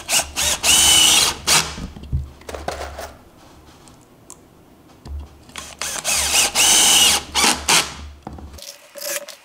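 A KIMO 20V cordless drill driver in screw-driving mode driving wood screws into a wooden board: two screws, each a run of a couple of seconds of motor whine, the second starting about five seconds in. Between them come the quieter sounds of a hand fitting the next screw onto the bit.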